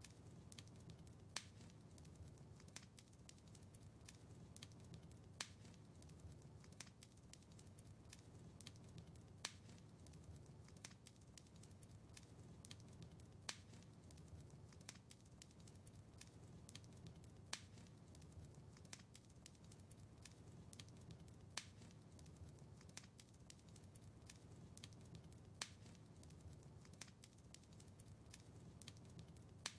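Wood fire crackling in a fireplace: scattered sharp pops and snaps over a low, steady rumble, with a louder pop about every four seconds.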